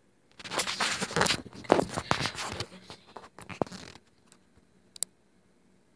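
Rustling and scraping handling noise close to the microphone for about three and a half seconds, broken by sharp clicks, as the recording device is moved and set down. A single click follows about five seconds in.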